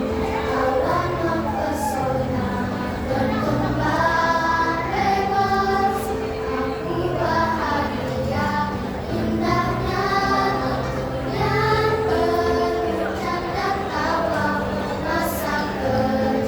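A choir singing a song in parts, the voices holding long notes over steady low notes underneath.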